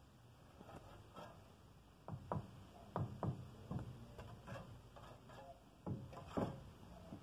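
Steel mason's trowel knocking and scraping against clay bricks and mortar while bricks are laid on a vault: a run of sharp knocks about two to four seconds in, and a few more around six seconds.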